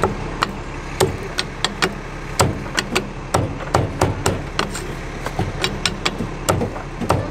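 Meat cleaver chopping crispy-skinned roast pork belly on a thick wooden chopping block: sharp, irregular chops about two or three a second, over steady low street noise.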